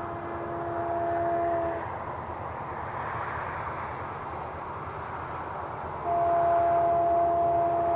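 Horn of an approaching Canadian Pacific freight locomotive, still out of sight, sounding two long blasts: one at the start lasting under two seconds and a louder one from about six seconds in, over a steady background rumble.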